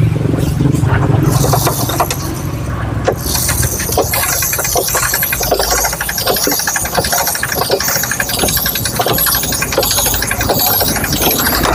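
Honda Grand's small four-stroke single-cylinder engine running steadily with a busy ticking. Oil is not reaching the test passage, which the mechanic puts down to a worn, weak oil pump.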